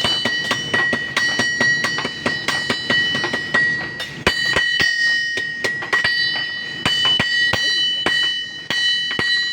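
Blacksmiths' hammers striking metal on an anvil in a fast, synchronized rhythm, the anvil ringing after each blow. The strikes come about four a second at first, grow sparser about halfway, and stop near the end.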